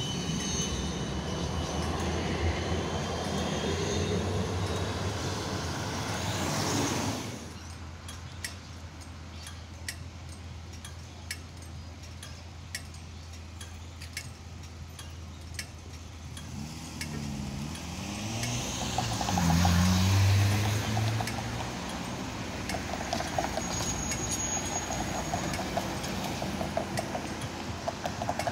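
A Siemens Combino D2-class tram runs away along its track, a steady rumble with thin high wheel tones, until the sound drops off abruptly about seven seconds in. Quieter street traffic follows, with regular ticking. About two-thirds of the way in, a vehicle engine rises and falls in pitch as it pulls away.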